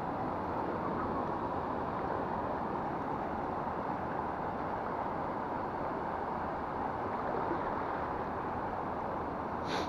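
Steady rushing wash of waves and water along the shoreline, even and unbroken. A brief higher sound comes just before the end.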